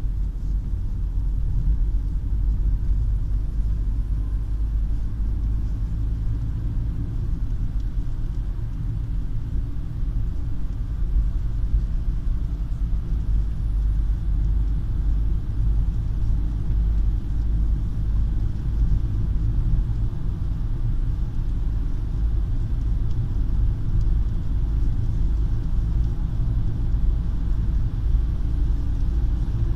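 Volkswagen Touran engine running steadily at about 1700–2000 rpm, a continuous low rumble. This is the rev range in which the owner says a whistle appears, a faint thin tone above the rumble.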